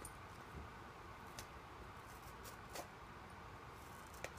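Dog chewing a ball and picking it apart: faint, with a few short sharp clicks about a second and a half in, near three seconds and near the end.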